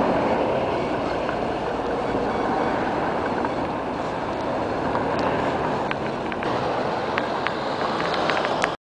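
Steady noise of passing traffic, with a few sharp clicks in the last three seconds.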